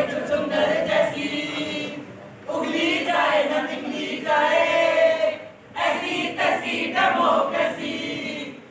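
A group of voices singing together in an unaccompanied chorus, in three phrases of two to three seconds each with short breaks between them.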